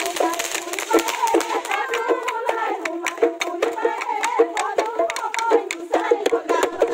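Loud festive music with a wavering melody, mixed with crowd voices and cut through by many sharp, irregular cracks, several a second.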